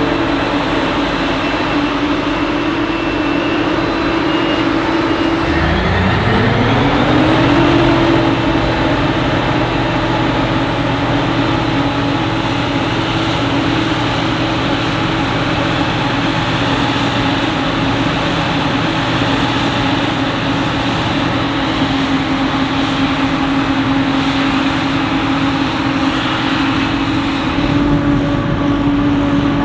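Heavy diesel engines of maize-harvesting machinery running steadily. About six seconds in, one engine climbs in revs, then holds a higher steady note.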